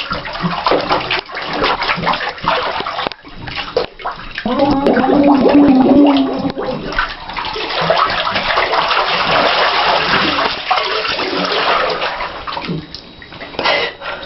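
Water splashing and sloshing in a full bathtub as a person thrashes about in it. A voice gives a held, wordless sound about five seconds in.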